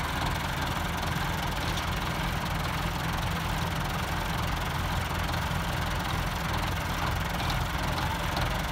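Diesel tractor engines running steadily at an even pitch: a Massey Ferguson 385 and a Russian-built tractor chained ahead of it.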